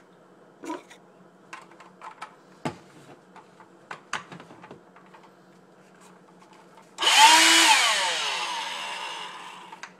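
Light plastic clicks and knocks as the Electrolux Ergorapido stick vacuum is handled and fitted back together. About seven seconds in, the vacuum's motor comes on suddenly with a loud whine, is switched off almost at once, and winds down in falling pitch over two to three seconds, powered by its replacement 3S lithium-polymer pack.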